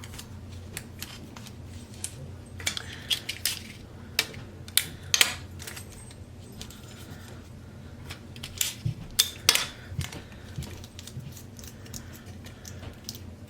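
Close handling noise of adhesive tape being pulled and pressed over a folded napkin on a DSLR camera's built-in microphone holes: irregular sharp clicks and crackles, in clusters, with a faint low hum underneath.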